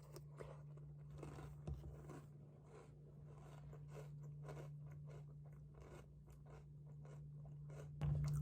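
Faint crunching, a string of soft crunches about two a second over a steady low hum; piano music comes in at the very end.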